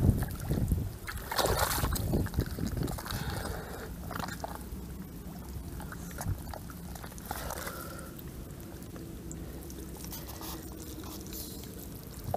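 Wet mud squelching and sloshing as hands and feet dig into a waterlogged eel hole. The squelches come in irregular bursts, busiest in the first few seconds and again briefly about halfway through, over a steady low rumble.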